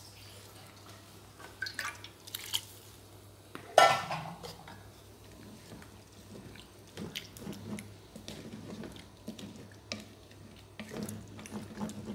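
Clinks and knocks of metal against an aluminium cooking pot of simmering dal, with one loud ringing clank about four seconds in and lighter knocks and scraping after it.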